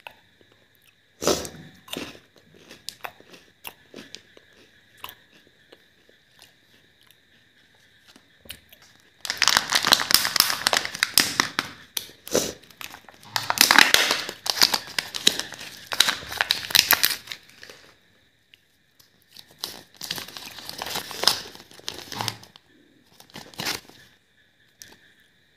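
Foil and paper packaging of a Kinder Joy egg crinkling and tearing as it is opened and unfolded. It comes in one long stretch and a shorter one after it, with a sharp tap and light clicks before them.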